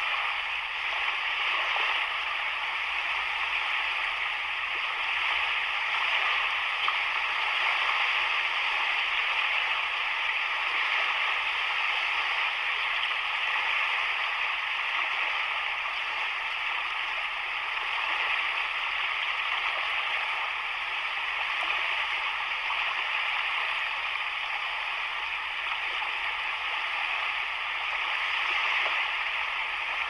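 Sea waves washing against a rocky shore: a steady rushing hiss with only gentle swells in loudness.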